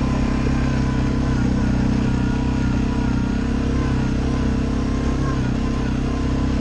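Suzuki ATV engine running steadily as the quad rides along a dirt trail. A faint high whine, wavering slightly in pitch, sits above the engine note.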